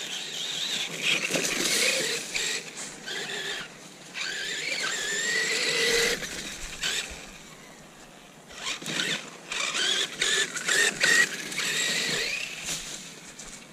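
Losi Lasernut RC car's electric motor and geartrain, with its hardened metal center spur gear, whining up and down in pitch as the throttle is worked on and off around a track. Scattered clicks and crunches from the tyres and the track surface are mixed in. The car goes quieter about seven seconds in, then picks up again.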